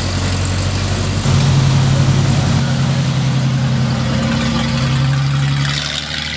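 Engines of vintage fire trucks running as they drive slowly past one after another: an antique open-cab fire engine, then a Mack fire tractor unit. A steady low engine tone, with a stronger, higher engine note coming in about a second in and easing off near the end.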